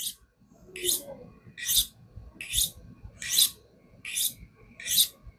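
A Gerber Sledge's 7Cr steel blade drawn across a ceramic sharpening rod in alternating strokes: a short, high hiss comes about every 0.8 s, seven times. These are light finishing passes that refine away the burr.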